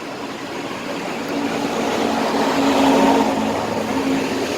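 Motor vehicle engine running close by, growing louder to a peak about three seconds in as it passes, then easing slightly.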